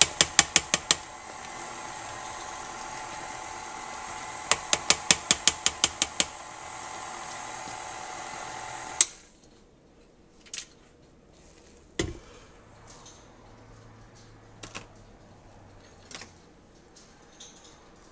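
KitchenAid stand mixer running with its flat beater in mashed potatoes, a steady motor hum and whine, broken twice by quick runs of clicks as the turning beater knocks against a spatula held in the bowl. The motor switches off about nine seconds in, followed by a few scattered knocks and clicks while the mixer head is raised.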